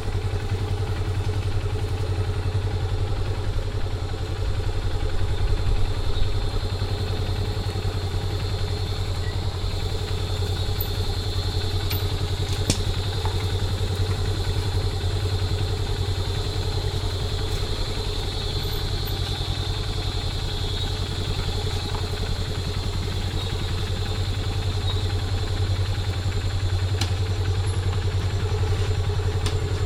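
Small motorcycle engine running steadily at an even pitch, with a few faint clicks.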